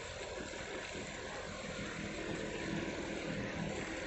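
A boat's engine running steadily, an even drone with a faint steady hum.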